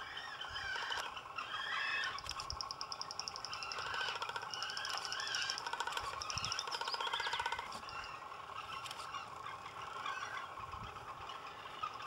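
Magnificent frigatebird colony: a displaying male with his red throat pouch inflated gives fast rattling drum calls in bursts of a second or so, over steady warbling chatter from other frigatebirds.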